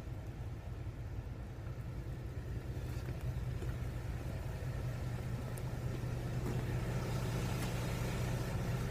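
Truck engine idling, a steady low hum that grows a little louder near the end.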